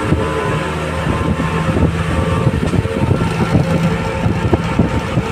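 A vehicle's engine and tyre noise as it drives through a road tunnel: a steady, loud drone with low engine tones.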